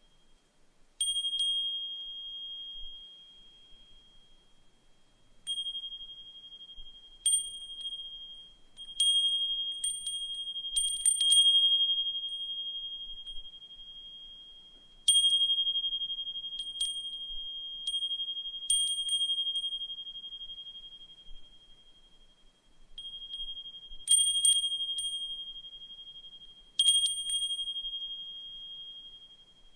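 Brass suzumushi furin (Japanese wind chime) ringing: its clapper strikes at irregular moments, often several times in quick succession, and each strike sets off a single clear high tone that fades slowly. There are longer lulls around the middle and again shortly before the last few strikes.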